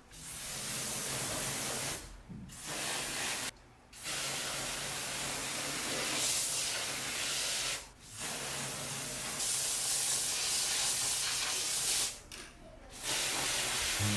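Spraying hiss in long bursts, broken by four short pauses, heard during air conditioner cleaning.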